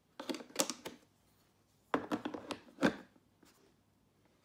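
Clicks and knocks of a dog clipper and a small plastic oil bottle being set down into the slots of a moulded plastic carry case, in two short clusters, one at the start and one about two seconds in.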